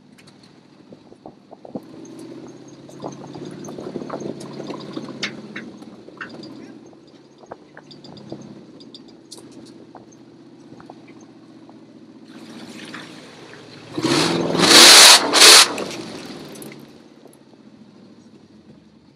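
Supercharged Toyota 2UZ-FE V8 in a lifted pickup pulling at low speed through mud, then revved hard about 14 seconds in, in two loud surges, as the tyres churn through a mud hole and spray mud against the body. Sharp knocks from the truck working over the rough track come and go, and the engine drops back near the end.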